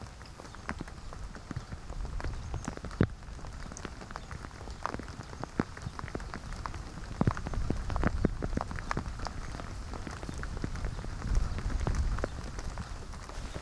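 Rain falling, with scattered drops striking close by as irregular sharp ticks over a low steady hiss.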